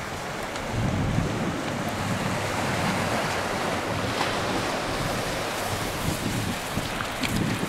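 Wind buffeting the microphone over the wash of small waves on a beach; the wind rumble grows louder about a second in.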